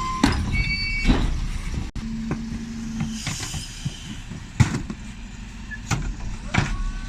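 A Dennis Elite 6 refuse truck runs while its Terberg OmniDEKA bin lifter empties wheelie bins, with several sharp bangs as the bins are tipped and shaken against the lifter.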